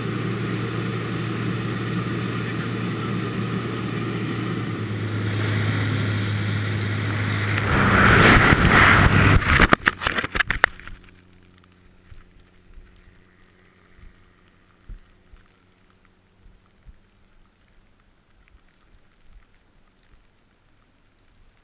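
Light propeller aircraft's engine droning steadily, heard inside the cabin and growing louder, then a loud rush of wind with rapid fluttering about eight seconds in as the camera leaves the plane. After about ten seconds the engine fades away and only faint, scattered wind buffeting is left on the falling camera.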